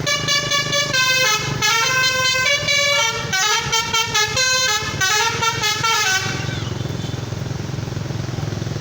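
Indonesian bus telolet horn playing a quick stepping melody of many short notes for about six seconds, then cutting off, leaving a low engine rumble.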